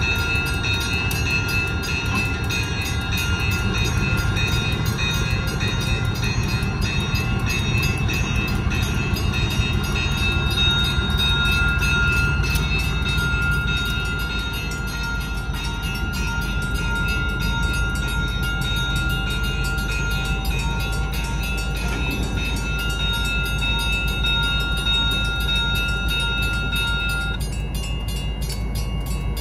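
Two EMD GP15-1 diesel locomotives passing slowly over a grade crossing, their 12-cylinder engines giving a steady low rumble. A railroad crossing bell rings rapidly over it, along with steady high-pitched tones, one of which cuts off near the end.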